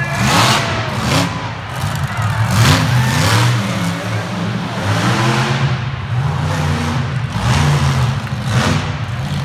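Monster truck engine revving hard in repeated surges, five or so about every two seconds, over a steady low running note.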